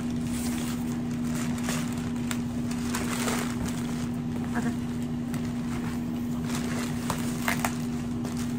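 Black plastic shipping bag rustling and crinkling in short bursts as a cardboard box is worked out of it, with a few cardboard scrapes, over a steady low hum.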